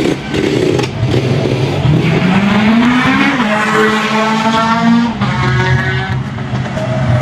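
Small petrol engine of a ride-on vehicle under way, its pitch climbing as it speeds up, holding, then dropping back as it eases off about five seconds in.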